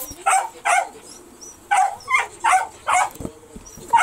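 A dog barking repeatedly: about six sharp barks, two near the start, then a pause, then a run of four.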